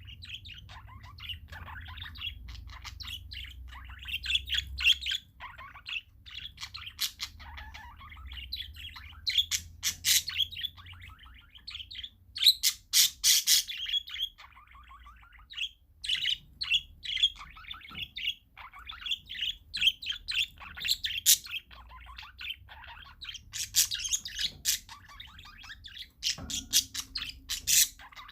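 Several parakeets chirping continuously over one another, with louder, harsh squawks breaking in about ten seconds in, around thirteen seconds, and again near the end.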